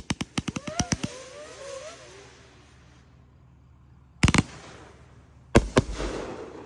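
Pyro Box 'Liberal Tears' firework cake firing. A rapid string of about a dozen bangs in the first second trails off into crackling with a few brief whistles. Then come two heavy shots about a second and a half apart, each followed by a crackling tail.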